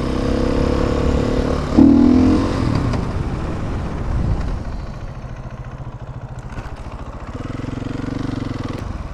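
Stunt motorcycle's engine running, with a sudden rev about two seconds in, then its note falling away to a lower, steady run.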